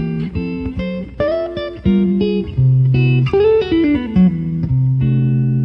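Outro music led by guitar, a quick run of plucked notes over a held bass, ending on a sustained chord.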